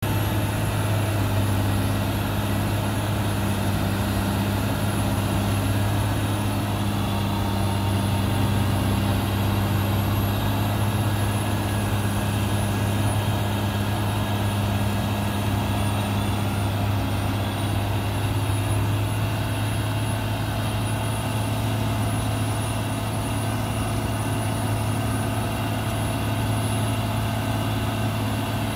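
Caterpillar motor grader's diesel engine running steadily under load as it moves slowly with its blade down, grading a dirt road. A steady low drone with a thin high whine that wavers slightly above it.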